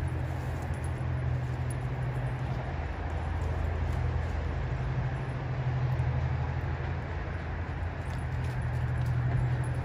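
A steady low mechanical hum, like a vehicle or machine running, over outdoor background noise.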